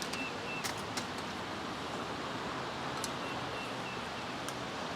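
Steady background hiss with a few faint clicks: one just under a second in, one about three seconds in, and one near the end.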